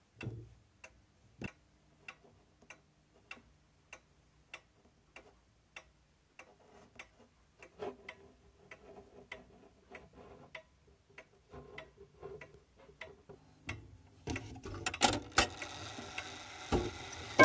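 F.M.S. Mauthe box clock's clockwork movement ticking evenly, about one and a half ticks a second. Denser, louder mechanical clatter and rattling rise over the last three seconds.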